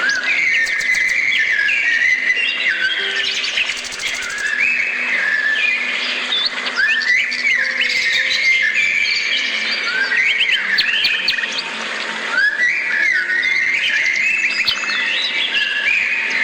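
A dense chorus of small songbirds chirping and whistling, many overlapping calls with quick rising and falling notes.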